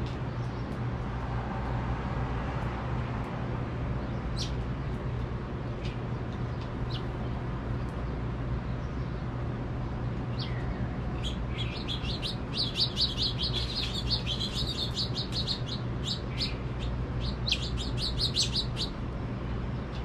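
House finches chirping: a few single chirps at first, then a fast twittering run from about halfway through and another near the end. A steady low rumble of distant city traffic runs underneath.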